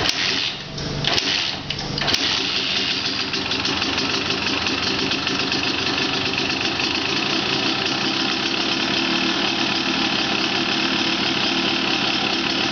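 1989 Honda CR250R's two-stroke single-cylinder engine being kickstarted on its first start after a full rebuild: a couple of seconds of uneven bursts, then it catches about two seconds in and runs steadily at idle.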